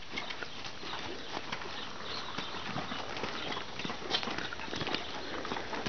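Appaloosa horse's hooves clopping in an irregular series of knocks as it walks on a lead over dirt and gravel, with the handler's footsteps mixed in.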